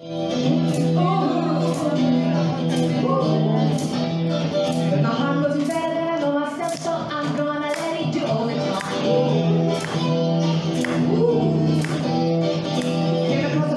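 Small live band playing an amplified song: electric guitar, women's voices singing wordless vocal lines, and a crisp hand-percussion hit on the beat, about once a second.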